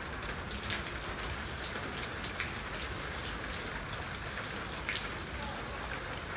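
Steady rain falling on wet concrete and puddles, with scattered sharper drips landing close by, the loudest about five seconds in.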